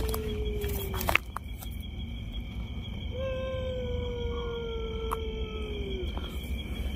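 A long, drawn-out crying wail of unknown origin, held at one pitch and sagging slowly, heard twice: the first fades out about a second in, the second lasts about three seconds from a little after three seconds in. A steady high insect trill runs underneath.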